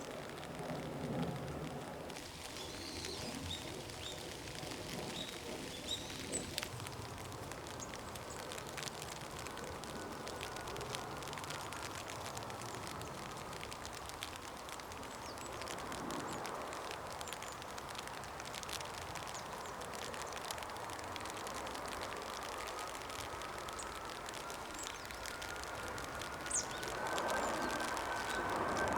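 Outdoor ambience with steady background noise and a few short, high bird chirps in the first several seconds.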